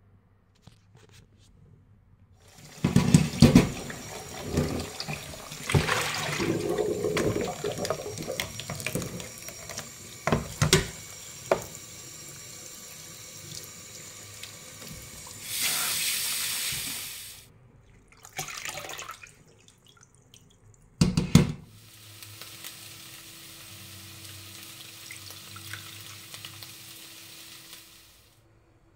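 Kitchen tap water running into a sink and splashing over raw fish steaks in a stainless steel colander as they are rinsed, with several knocks and clatters. The flow breaks off past the middle, and after a couple of loud knocks it runs again, steadier and softer, until it stops near the end.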